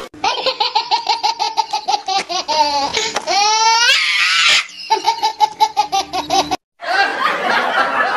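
High-pitched laughter in rapid ha-ha pulses, rising into a squealing run of laughter about three seconds in. It breaks off abruptly for a moment before a further burst of laughter near the end.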